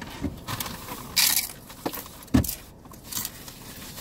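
Tortilla chips being bitten and chewed close by: a few separate crunches and rustles, the loudest about two and a half seconds in.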